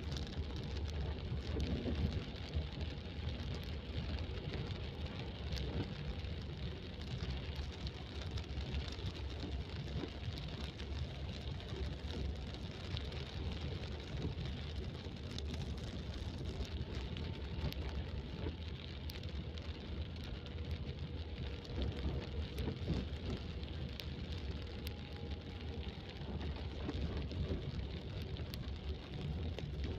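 Car driving in rain, heard from inside the cabin: a steady low rumble of engine and tyres on the wet road under the hiss of rain, with scattered ticks of drops striking the car.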